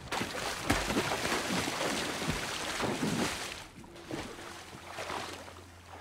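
A person wading quickly into icy seawater, legs splashing hard through the water and floating ice for the first three to four seconds, then slower sloshing with a couple of single splashes.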